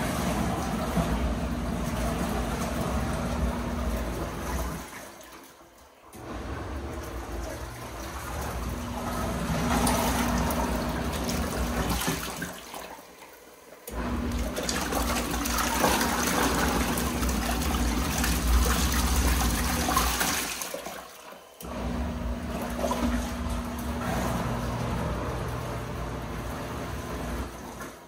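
Costway portable mini washing machine on its wash cycle: the motor hums while water and a towel slosh in the tub. The running fades out and pauses briefly three times, about every seven seconds, as the agitator stops to change direction.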